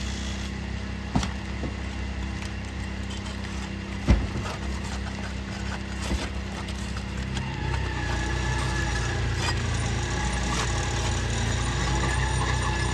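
An engine running steadily, its tone shifting and getting a little louder about two-thirds of the way through, with a few sharp knocks; the loudest knock comes about four seconds in.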